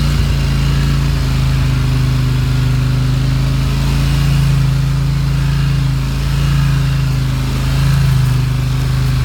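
Polaris RZR 1000 side-by-side's parallel-twin engine running under way on a trail, a steady hum that swells and eases slightly a few times with the throttle.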